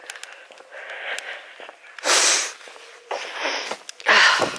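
A walker's breathing close to the microphone: three loud breaths out in the second half, about a second apart.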